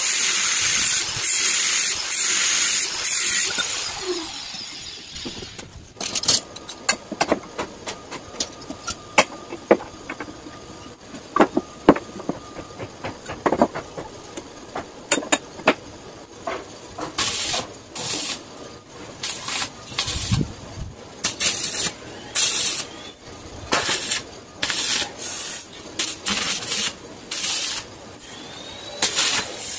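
Angle grinder cutting square steel tubing, a loud steady cut that ends about four seconds in. Then sharp knocks and clicks of steel tubes being laid out and clamped. From about halfway on come about a dozen short bursts, each under a second, of arc-welding tack welds joining the tube frame.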